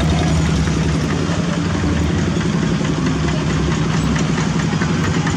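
Single-cylinder Kubota diesel engines of two-wheel walking tractors running steadily, a fast, even diesel chugging.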